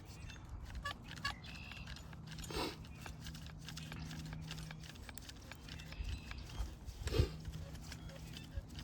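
Irregular small clicks and knocks of clamps and steel springs being worked on a Conibear 330 body-grip trap as its springs are squeezed down, with two brief louder scrapes and a faint steady hum under them.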